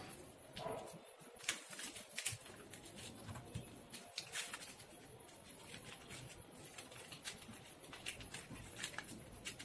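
Faint, scattered crinkles and ticks of coloured paper being folded and creased by hand, with light touches on the tabletop.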